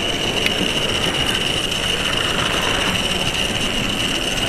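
Model railway train running along the track, heard from on board: a steady rolling noise of wheels on rails with a constant high-pitched whine, and a light click about half a second in.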